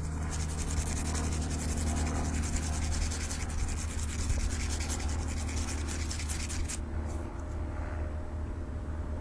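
Emery cloth rubbed rapidly back and forth over a metal fishing rod guide, sanding down its sharp factory-ground edge. The rubbing stops abruptly about seven seconds in.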